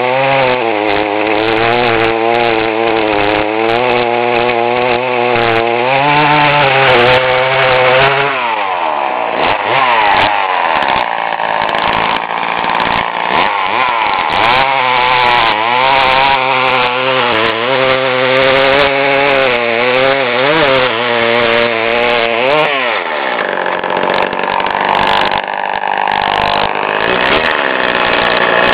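Vintage Poulan Super 25DA 38cc two-stroke chainsaw running at high revs while cutting red oak, its pitch wavering under load. Twice the revs drop away steeply and then climb back.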